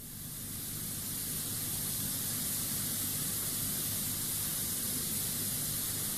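Steady hiss of the played-back test recording's background noise, with a faint low hum under it. It comes in suddenly from dead silence just at the start and builds a little over the first second.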